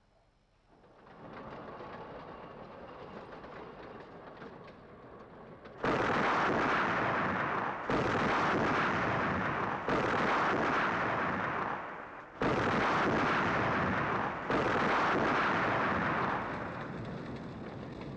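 Freight wagons blowing up on a railway line: a rising rumble, then about six seconds in a string of five heavy explosions, each starting suddenly and running on for about two seconds before the next, fading near the end.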